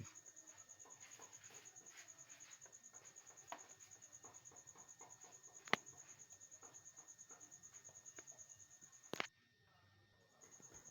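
A cricket trilling faintly as a steady, rapidly pulsing high tone, with a few light clicks and taps from handling the work, one sharper click about two-thirds through. Everything cuts out for about a second near the end, then the trill returns.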